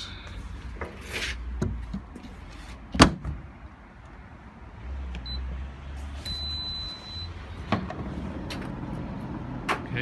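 Candy GCC 590NB condenser tumble dryer: its door shuts with one sharp click about three seconds in, then the control panel gives a short high beep and a longer one, over the low hum of the machine running.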